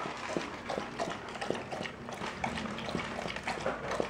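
Golden retriever lapping water from a glass bowl: a run of short, wet laps, about two or three a second.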